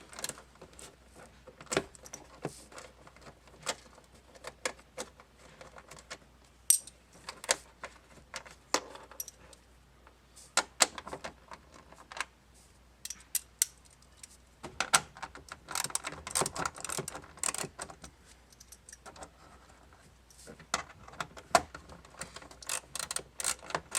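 Scattered sharp metallic clicks and clinks of a socket wrench and small 7 mm bolts being handled as a glove box access cover is unbolted, busiest about fifteen seconds in and again near the end.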